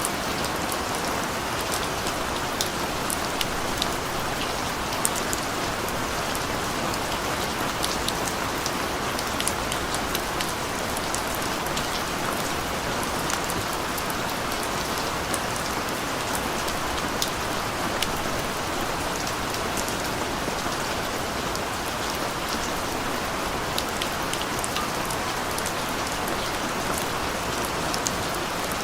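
Steady rain falling on a street, an even hiss with many individual drops ticking.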